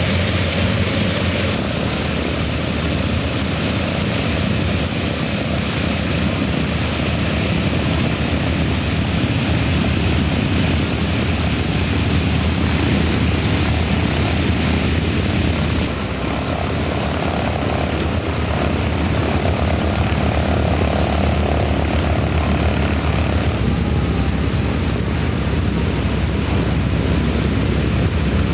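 Propeller aircraft engines running steadily after start-up, a continuous loud drone that shifts abruptly in tone about a second and a half in and again about sixteen seconds in.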